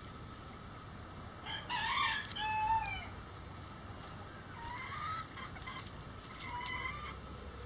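A bantam rooster crowing twice, the first crow louder and ending in a falling note, with some clucking among the flock.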